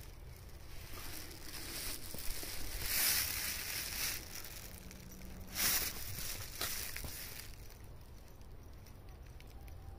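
Rustling, scuffing handling noise from a hand-held phone moving about, loudest about three seconds in and again near six seconds, over a steady low rumble.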